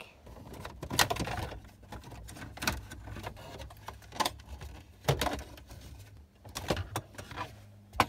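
Plastic dashboard trim from a 2000 Subaru Outback clicking and clattering as a loose trim bezel is handled: about ten sharp clicks and knocks at uneven intervals, with a low steady hum behind.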